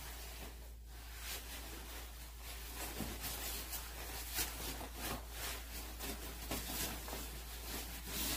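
Clothing fabric rustling and rubbing in soft, irregular brushes as an outer coat is pulled on over many layers of clothes.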